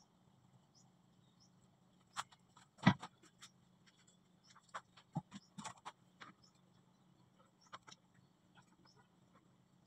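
Scattered clicks and knocks of hands and a hand tool handling PPR plastic pipe fittings, the loudest knock about three seconds in, over a steady low hum.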